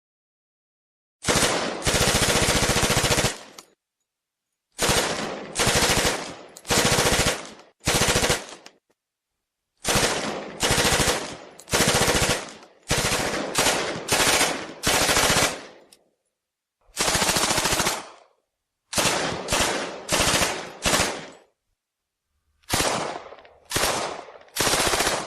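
Thompson M1928A1 submachine gun in .45 ACP firing full-auto: about twenty separate bursts of rapid shots, most under a second, a few running about two seconds, each with a short echo tail and cut apart by dead silence.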